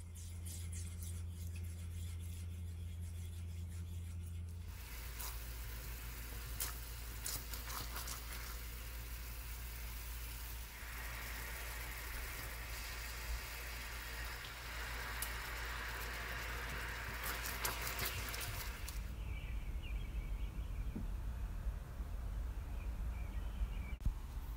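Sugar syrup heating in a nonstick frying pan on an electric hob. A low steady hum for the first few seconds gives way to bubbling and sizzling with scattered clicks as the syrup comes to the boil, loudest in the middle stretch, then it dies down to a faint hiss near the end.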